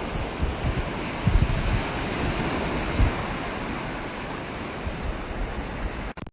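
Ocean surf breaking and washing on the shore, a steady rush, with wind buffeting the phone's microphone in uneven low gusts. The sound cuts out for a moment near the end.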